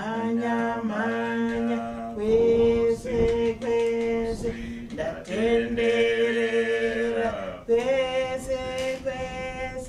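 Background music of singing voices holding long, slow notes, in three or four drawn-out phrases.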